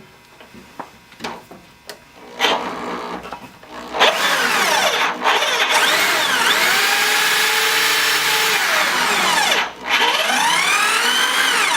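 Power drill running in reverse with a Speed Out extractor bit biting into a seized broken frame-rail bolt, worked slowly. It gives a short burst, then runs steadily loud from about four seconds in, its pitch rising and falling with the trigger, with two brief letups. The extractor does not free the bolt.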